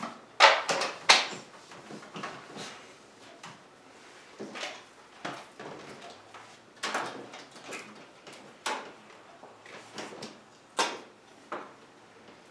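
Picture cards being handled and put up on a whiteboard: a string of short, irregular taps, knocks and rustles, loudest about half a second and a second in.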